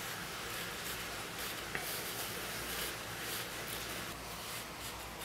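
Faint gritty scratching and rustling of fingertips pressing and rubbing crushed turquoise stone into a crack in a maple slab, with a light click or two and a low steady hum behind.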